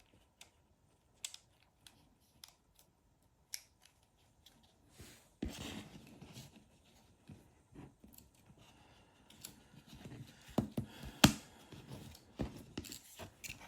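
Small tools and the plastic parts of a Google Nest Doorbell being handled: scattered light clicks and taps, then scraping and rustling from about five seconds in, with a single sharp click about eleven seconds in.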